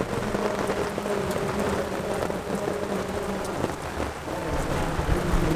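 Heavy rain pouring down onto the paved street and a fabric awning overhead, a dense, steady hiss of drops. A low rumble rises under it near the end.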